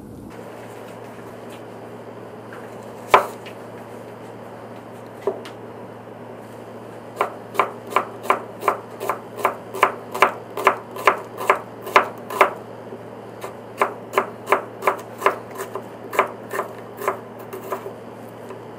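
Kitchen knife slicing an onion on a cutting board: two single knocks of the blade on the board, then two runs of quick, even slicing strokes, about three a second.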